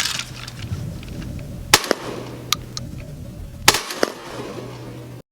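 12-gauge shotgun fired at clay targets: two sharp reports about two seconds apart, with several smaller cracks between them, over a steady low hum. The sound cuts off abruptly just before the end.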